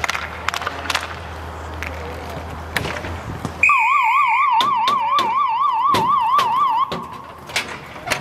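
A loud electronic warbling siren tone starts abruptly a little before the middle and lasts about three seconds. Its pitch swings rapidly up and down, about five times a second. Scattered sharp clacks are heard around it.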